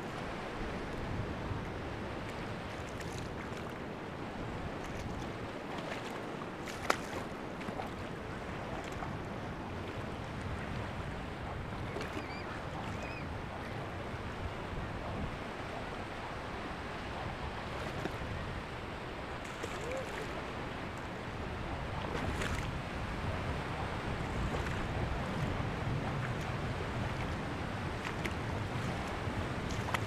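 Sea surf washing in steadily over a shallow sandy beach, a continuous rushing noise that swells a little louder about two-thirds of the way through. A few small clicks, and one sharp click about seven seconds in.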